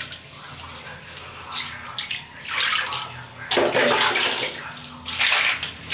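Water splashing and running, faint at first, then coming in louder uneven bursts from about halfway through, typical of rinsing a bathroom surface with water.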